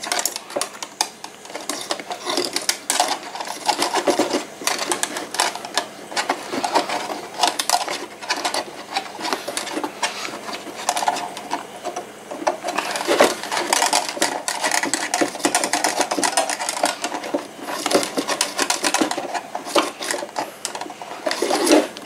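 A thin wire being pushed and worked back and forth inside a coffee maker's clogged metal water tube: a continuous, rapid scratching and rubbing with many small clicks, as rust is scraped loose from the blockage.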